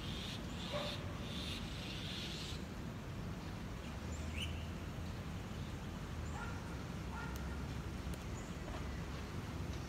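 Distant city ambience: a steady low traffic hum with short animal calls scattered through it, and a brief hiss in the first couple of seconds.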